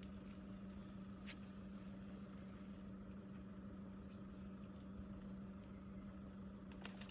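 Faint, steady low hum over a light hiss, with one faint click about a second in.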